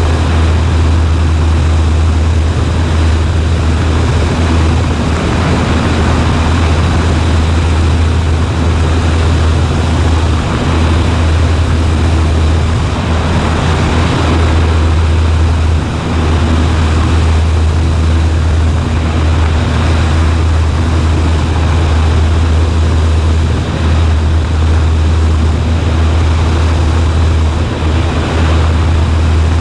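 Cessna 140A's piston engine and propeller running in a loud, steady drone.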